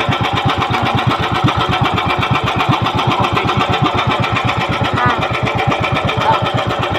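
Outrigger fishing boat's small engine running steadily with a fast, even chugging beat.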